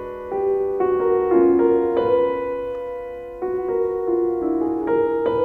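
Background piano music: sustained notes and chords, a new chord struck every second or so.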